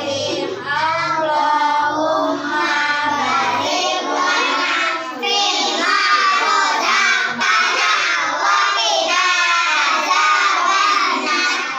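Young children singing together.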